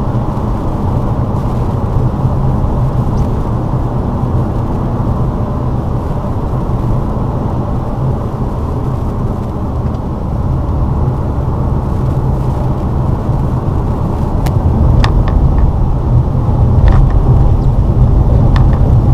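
Lada Vesta driving on a snowy road: a steady rumble of engine and tyres, rising a little near the end, with a few sharp clicks in the last few seconds.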